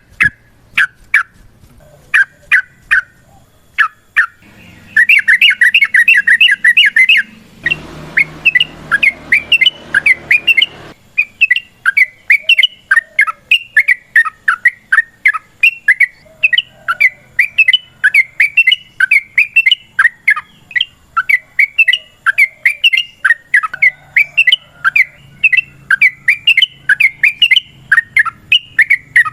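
Yellow-vented bulbul (trucukan) calling in a long, fast chatter of sharp repeated chirps, at several notes a second, with a dense burst about five seconds in. A hissing noise passes through for a few seconds in the middle.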